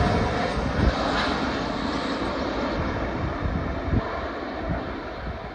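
Airbus A330-343 with Rolls-Royce Trent 700 turbofans on final approach, a steady jet roar that slowly fades and dulls as the airliner passes and moves away. A few brief low thumps are heard in it.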